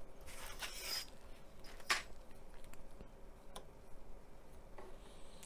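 Small hand tools and plastic model parts being handled at a hobby bench: a short rasping scrape, then a sharp click about two seconds in, and a few fainter ticks.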